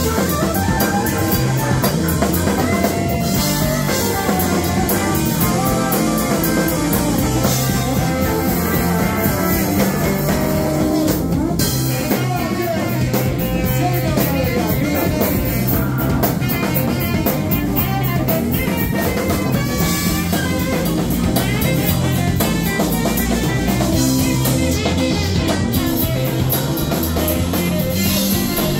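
Live rock band playing an instrumental passage: electric guitar, bass and drum kit with cymbals.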